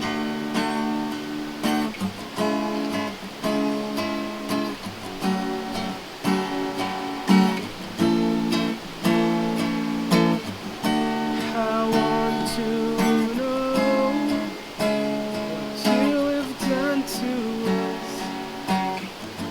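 Acoustic guitar strummed and picked in a steady rhythm, playing the song's instrumental introduction.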